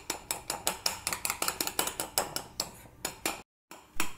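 Metal spoon clinking and tapping against the side of a glass bowl in quick, even strokes, several a second, while stirring a foamy slime mixture. The sound breaks off for a moment near the end.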